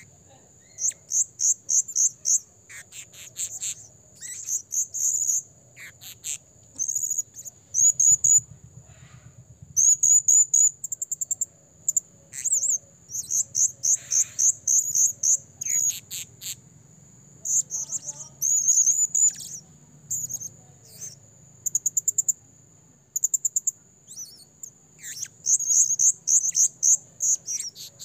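Male blue-crowned hanging parrot calling busily: short bursts of rapid, very high, thin chirps, each burst under a second and following the last after a brief pause.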